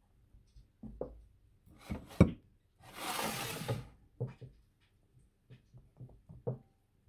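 Kitchen handling sounds: scattered light knocks and taps of utensils and bowls on a wooden cutting board and steel counter, with one sharp click about two seconds in and a rustle lasting about a second around the three-second mark as vine tomatoes are handled.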